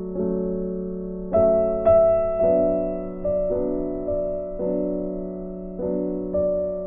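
Background piano music: slow sustained chords, each struck and left to ring and fade before the next, about one a second.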